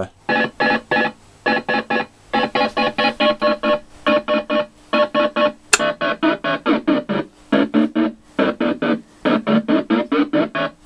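Photophonobservotron MK2, a wooden lunetta-style electronic sound machine, playing pitched buzzy tones chopped into short rapid pulses by an external gate signal. The pulses come in groups of several with brief gaps between, and the pitch shifts from group to group.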